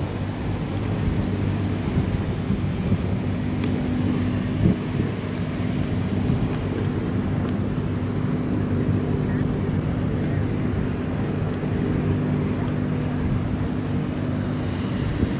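Superdong IV high-speed ferry's diesel engines running in a steady low drone while it manoeuvres into its berth, with a constant rushing noise over it.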